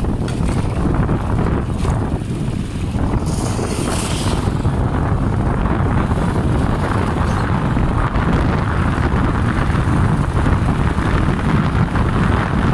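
Wind rushing over the microphone while riding a motorcycle on the road, a steady low rumble with vehicle noise underneath; a brief hiss rises about three seconds in.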